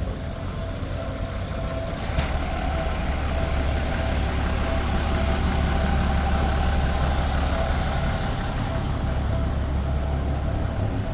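Street traffic with a city bus's diesel engine running close by: a steady low engine hum that gets louder about two seconds in.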